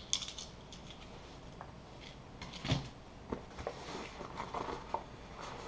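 Hands handling a nylon sling bag and its gear: scattered small clicks and knocks, with bright metallic clicks at the start and a heavier knock about halfway through.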